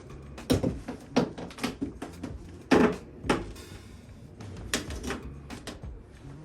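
Irregular knocks and clunks of car door parts being handled and fitted, about ten in all, the loudest about three seconds in.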